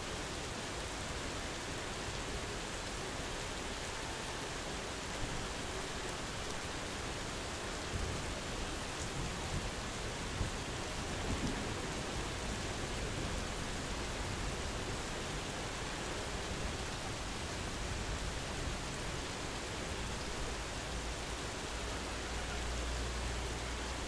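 Steady medium-intensity rain falling, with low rumbles of distant thunder about a third of the way in and again near the end.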